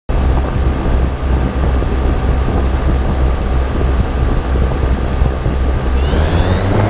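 Cessna light aircraft's piston engine and propeller running steadily at low power, then rising in pitch about six seconds in as the engine speeds up.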